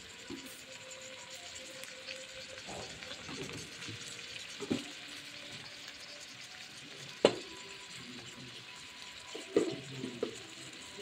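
Leafy greens and onions sizzling in oil in a steel pot, a steady frying hiss. A few sharp knocks cut through it, the loudest about seven seconds in.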